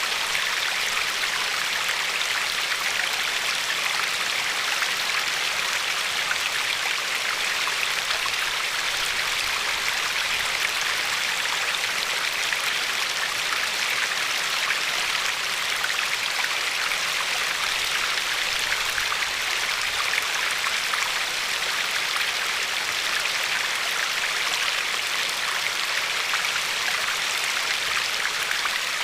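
River water flowing and lapping over a pebble shore: a steady, even rush of water with many fine splashes and little deep rumble.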